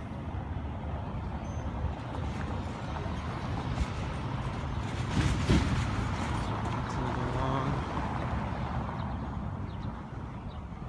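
Motor vehicle driving past: low engine rumble that builds to a peak about halfway through and then fades.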